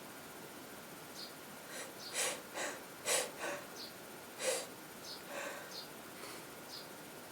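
A person with a head cold sniffling and snorting: a run of short, noisy breaths through a congested nose, the strongest about two to four and a half seconds in, with fainter little sniffs before and after.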